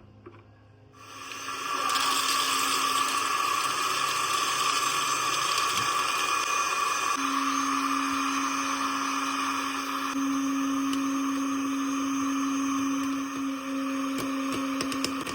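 A small electric motor in a kitchen appliance spins up over about a second and then runs steadily at high speed, with a low hum joining partway through. It stops near the end.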